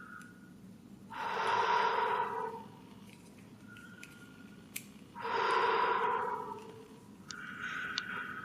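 A person breathing out heavily close to the microphone, twice, each breath lasting about a second and a half.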